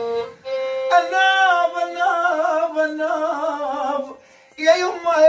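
Sweihli folk singing with violin: a wavering, heavily ornamented vocal line over a steady held violin note. The line breaks off for about half a second around four seconds in, then starts again.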